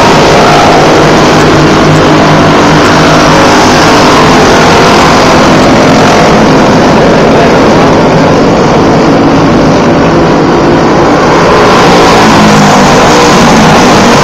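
Several racing go-karts' engines running at high revs as the pack laps a dirt oval, loud throughout. The sound thins a little in the middle while the karts are on the far side, and swells again near the end as a kart comes past.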